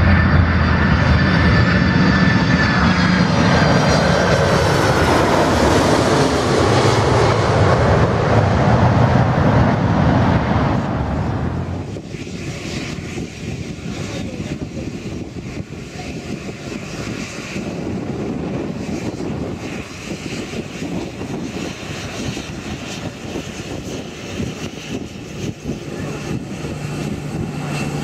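A large jet airliner passes low overhead, its engines loud, with a whine that falls in pitch as it goes by. About twelve seconds in this gives way to a quieter, steady hiss of a Boeing 737-700's CFM56 turbofans at idle as it taxis past.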